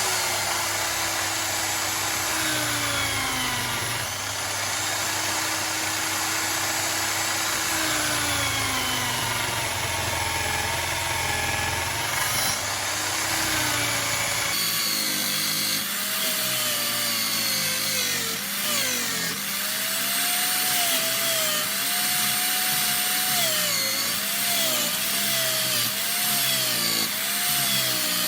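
Power drill spinning a wire brush to strip paint off aluminium engine side cases, with a steady motor whine whose pitch dips and recovers as the brush is pressed into the metal.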